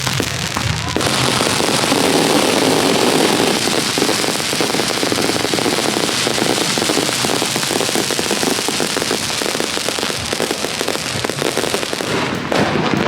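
Fireworks going off in a dense, continuous crackle, many small pops running together without a break.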